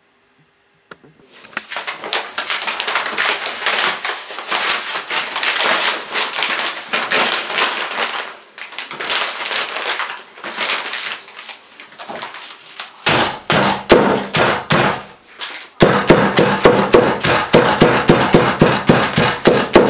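A crinkly sheet being folded and crumpled by hand, a dense crackling, then a rubber mallet beating the wrapped bundle on a wooden workbench: a few scattered blows, then a fast, even run of about five blows a second.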